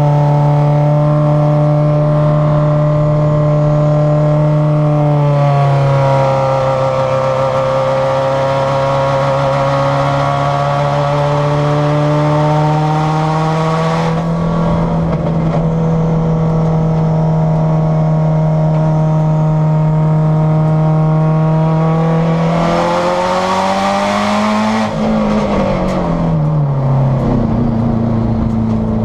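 Subaru STI race car's turbocharged flat-four engine under hard acceleration, heard from inside the cabin. Its note climbs steadily through the gears, drops sharply at an upshift about five seconds in, rises again with a hiss about two-thirds of the way through, and falls near the end as the car slows.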